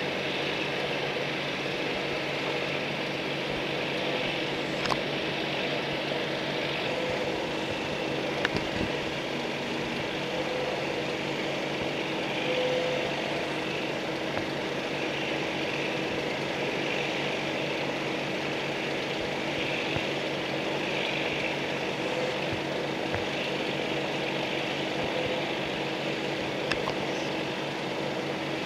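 An engine running steadily, a low even hum that holds one speed with no revving, with a few faint knocks now and then.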